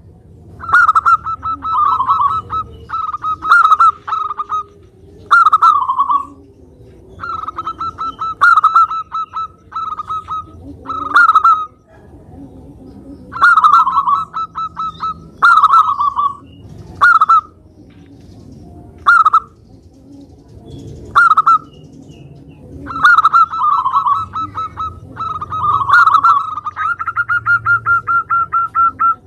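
Zebra dove (perkutut) cooing in full song: repeated phrases, each a quick run of rolling, pulsed coo notes, with pauses of a second or two between them.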